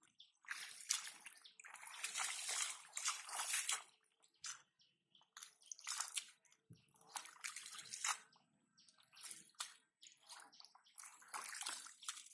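Hands splashing and sloshing in shallow muddy water while feeling through the mud for fish, in irregular bursts, the longest and loudest in the first few seconds, then shorter scattered splashes.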